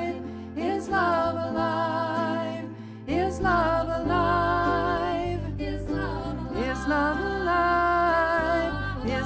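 Live band music: a singing voice over bowed cello, guitar and electric bass guitar. The bass notes get much stronger about three seconds in.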